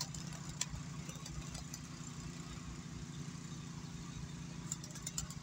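A steady low engine hum, as of an engine idling, with a few faint brief clicks on top.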